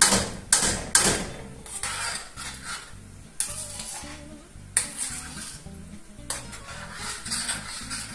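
A metal spoon stirring a thick potato stew in a stainless steel pot, with repeated sharp scrapes and knocks against the pot. Under them, the stew simmers over low heat with a faint sizzling hiss.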